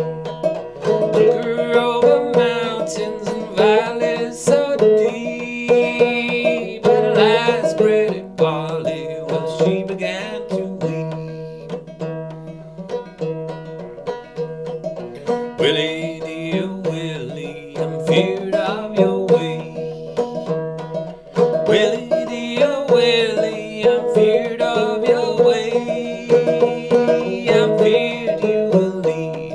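Old flush-fret Buckbee banjo with a new calfskin head and Nile gut strings, played clawhammer in sawmill tuning in a steady, driving rhythm. A man sings over it for stretches, with banjo-only breaks between.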